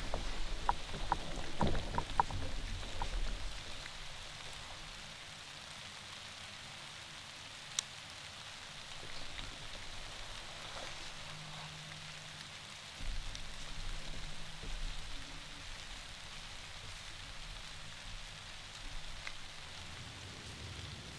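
Steady light rain pattering as a soft, even hiss. There are a few sharp ticks and low thumps in the first three seconds and a low rumble about two-thirds of the way through.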